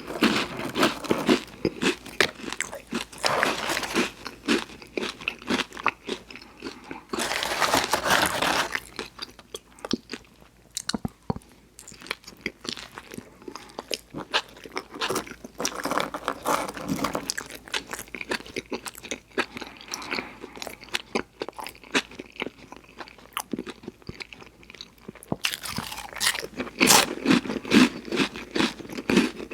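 Close-miked eating: repeated crunchy bites and chewing, with a denser, louder run of crunching about seven seconds in and again near the end.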